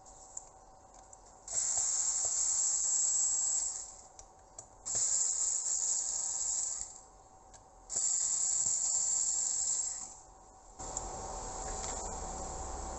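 Cordless drill/driver running in three short bursts of about two seconds each, with brief pauses between them, as it backs screws out of a charge controller's case. A steadier hiss follows near the end.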